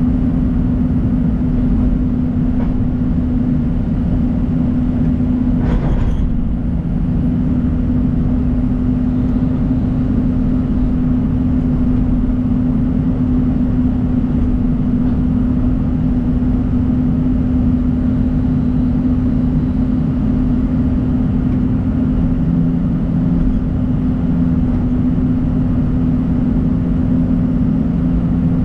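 John Deere 250G excavator's diesel engine running steadily at a constant pitch while digging, with one brief sharp knock about six seconds in.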